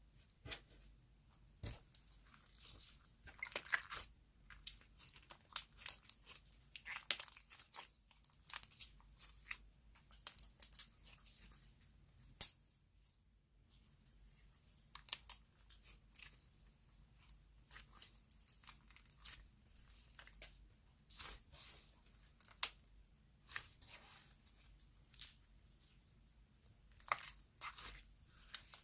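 Soft clay slime being pressed and stretched by hand, giving off irregular sticky crackles and tearing sounds, with a short pause about halfway through.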